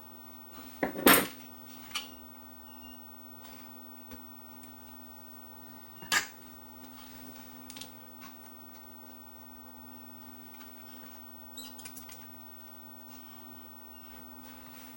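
A few sharp clicks and knocks of small hand tools and parts being handled on a radio chassis during capacitor replacement. The loudest comes about a second in, with more scattered through the rest, over a steady low hum.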